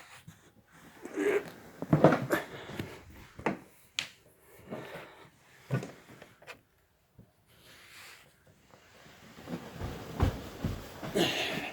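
Scattered knocks, scrapes and clunks of a window air conditioner's heavy metal chassis being pushed and slid by hand out of its cabinet sleeve, busier near the end.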